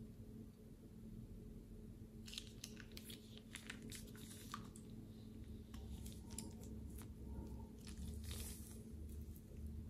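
Soft crackling and squishing of glossy slime and a plastic piping bag being pressed into it by hand in a glass bowl. The crackles start about two seconds in and come in clusters, over a faint steady low hum.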